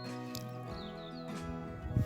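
Background music with sustained chords that change a couple of times.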